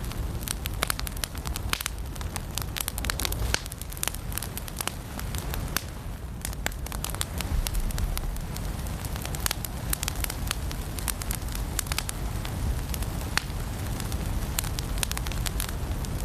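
Firewood burning in a fireplace, crackling and popping irregularly with several sharp snaps a second over a low steady rumble.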